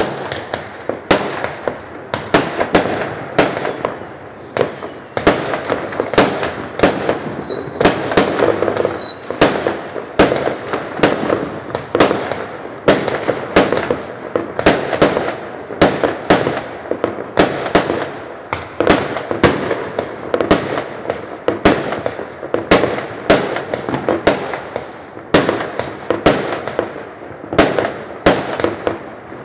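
Fireworks going off in quick succession: sharp bangs about one or two a second over a continuous crackle. Several high whistles fall in pitch one after another in the first part.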